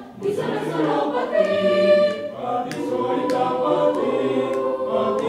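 Choir singing, several voices holding long notes that change pitch every second or so.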